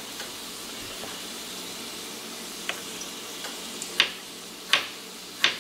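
Small knife slicing a garlic clove paper-thin on a wooden cutting board, with several sharp taps of the blade on the board from about halfway through. Under it, a steady sizzle from carrots and parsnips sautéing in olive oil over low heat.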